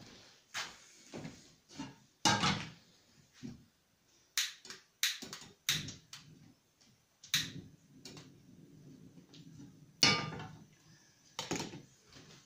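Sharp clicks and knocks as a gas cooker burner is lit by hand, a few quick clicks close together about four to six seconds in, among handling knocks, with one louder knock near the end.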